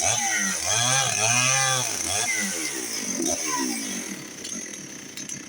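Dolmar 6400 two-stroke chainsaw engine revving up and down several times, its pitch rising and falling, then dropping back toward a lower, rougher running near the end.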